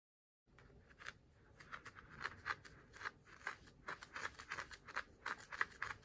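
Wooden craft stick stirring and scraping loose glitter in a small cup, in repeated short scratchy strokes, about two or three a second, starting about half a second in.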